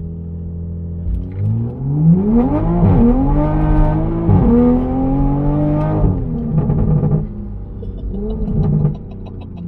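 Toyota GR Supra A90's turbocharged B58 inline-six, heard from inside the cabin, holding about 2000 rpm and then launching hard from a stop. The revs climb under full throttle, drop with automatic upshifts about 3 and 4.5 seconds in, climb again, and ease off about 6 seconds in.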